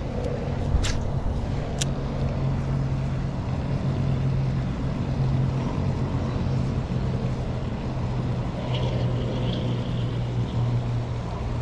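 A steady low droning hum under a rushing noise, with two sharp clicks in the first two seconds.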